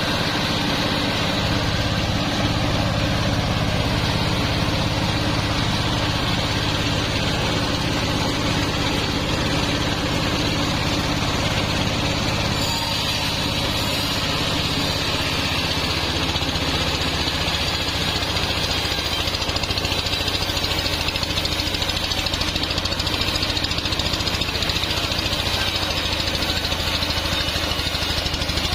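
Sawmill band saw and its drive engine running steadily: a continuous low engine hum with a high whine above it, the low hum shifting slightly in pitch about twelve and again about fifteen seconds in.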